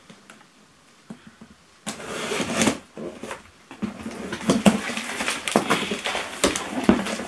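Plastic wrapping and a cardboard box being handled and pulled open: rustling and crinkling with small clicks that start about two seconds in, pause briefly, then grow denser from about four seconds in.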